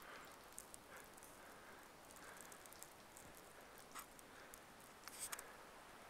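Faint footsteps crunching in fresh snow, soft and uneven at roughly one a second, over near silence.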